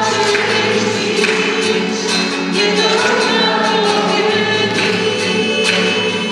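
A group of voices singing a slow hymn in long held notes, with sharp rhythmic strokes from an accompanying instrument.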